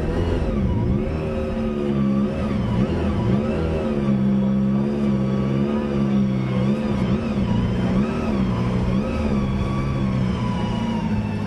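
Citroën Xsara WRC rally car's turbocharged four-cylinder engine running at low speed, its pitch dipping and rising again several times as the throttle is worked between steadier stretches.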